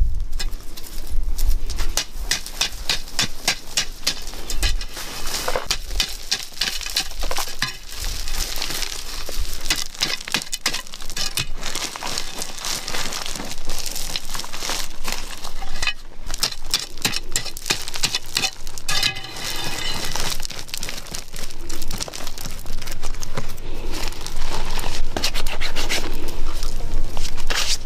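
Gravelly red earth and small stones being scraped, dug and crumbled by hand and with a hand digging tool: a dense run of small crunches and clicks.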